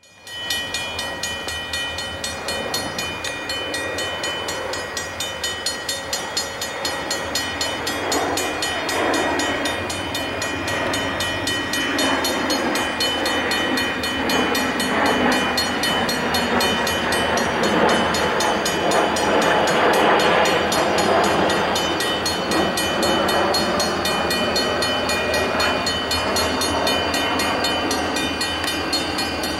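Grade-crossing warning bell ringing in an even, repeating beat. Under it the rumble of an approaching freight train's diesel locomotive grows louder from about eight seconds in.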